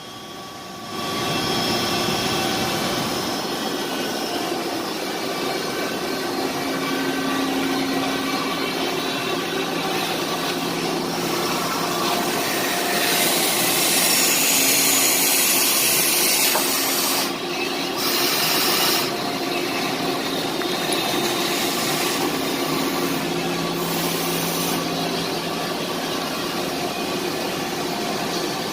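CNC machine running, a steady machine hum carrying several held tones under a hiss. The hiss grows louder for a few seconds about halfway through, and again in two shorter spells later on.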